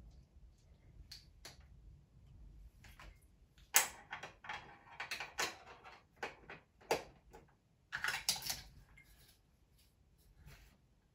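Hard plastic Playmobil toy-train parts clicking and rattling as they are handled and fitted onto the train: a run of sharp irregular clicks, loudest about four seconds in and again about eight seconds in.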